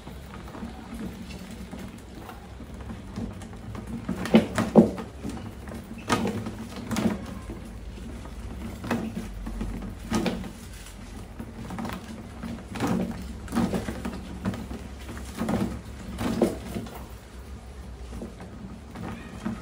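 Rats scrambling over a plastic bin trap and its ramp: irregular knocks and scratching of claws and bodies on hard plastic every second or two, the loudest two close together about four seconds in.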